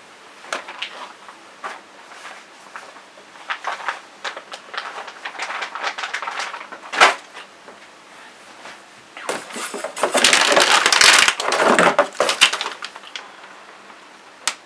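Packaging and bagged parts being handled: a run of small clicks, rustles and knocks, with one sharp knock about halfway through and a longer, louder stretch of rustling about two-thirds of the way through.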